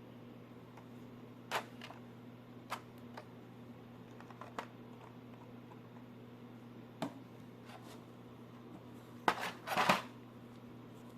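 Scattered light clicks and taps from handling an action figure and its plastic packaging, with a louder cluster of clicks and rustling near the end, over a steady low electrical hum.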